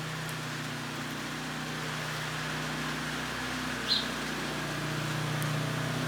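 A vehicle engine idling with a steady low hum that swells slightly past the middle, and one short high squeak about four seconds in.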